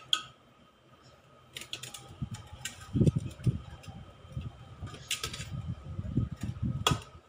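Metal spoon digging cooked rice out of a stainless-steel pot: a few sharp clinks of spoon on pot, with soft dull knocks and scrapes between them.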